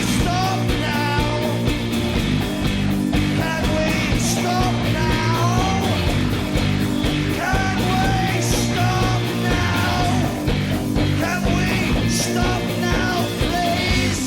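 Live rock band playing: a steady drum beat and bass, with a wavering melody line sliding up and down above them.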